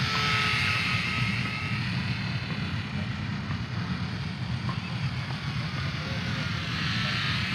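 Electric motor and three-blade propeller of an Eachine Spitfire 400 mm micro RC warbird whining as it flies tight circles, the pitch and loudness swelling as it passes close about a second in and again near the end.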